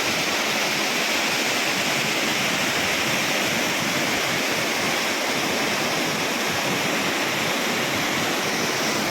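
Changey Falls waterfall: a steady rush of falling water.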